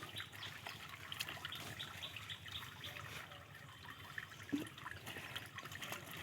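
Faint splashing, trickling and dripping of shallow water as fish are caught by hand, with a brief thump about four and a half seconds in.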